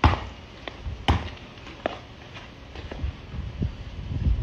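Basketball bouncing on a paved driveway: two sharp bounces about a second apart at the start, then a few fainter knocks and thuds.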